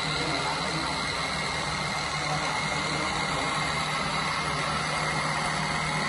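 Makita DRC200 18V brushless robotic vacuum cleaner running: a steady hum with a constant high whine.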